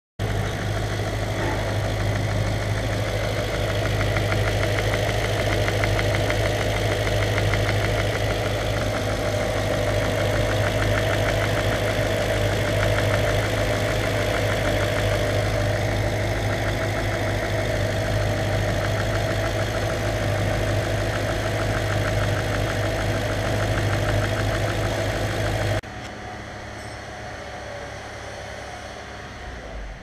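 Audi S4 4.2 V8 (BBK) engine idling with a rapid, even tapping from the intake manifold, which comes from the runner-length flap ticking under the pulsing intake air. The sound drops suddenly to a quieter level about 26 seconds in.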